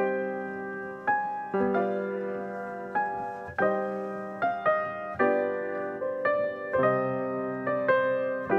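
Solo piano playing a slow piece: chords and melody notes struck every half second to a second, each left to ring and fade before the next.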